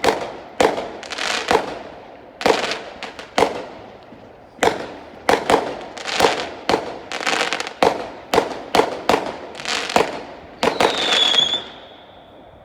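Fireworks going off in rapid succession: sharp bangs about two a second, each followed by a short decaying tail. Near the end a high, steady whistle sounds for about a second and fades out as the bangs stop.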